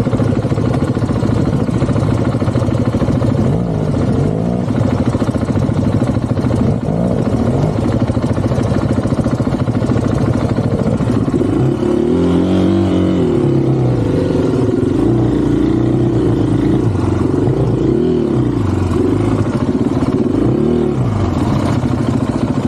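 Dual-sport motorcycle engine running under changing throttle, its revs rising and falling several times.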